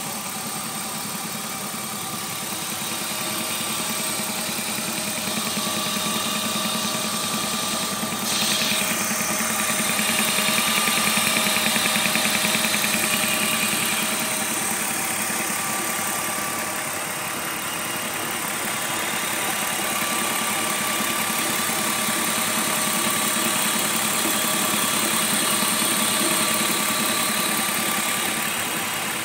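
BMW M52B25 2.5-litre straight-six engine idling steadily, with a few gentle rises and falls in level, and making odd noises that its owner cannot place.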